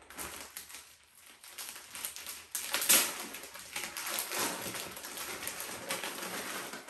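Plastic courier mailer bag crinkling and rustling as it is pulled and torn open by hand, with a sharp, loud rip about three seconds in.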